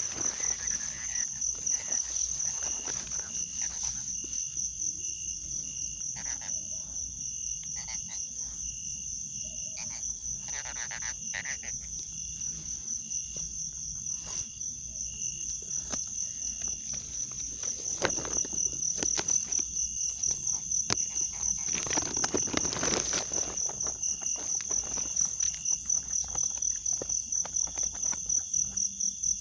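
Night chorus of crickets or other insects: a steady high-pitched trill of rapid pulses. It is joined by faint scattered clicks and a short noisy rustle about three-quarters of the way through.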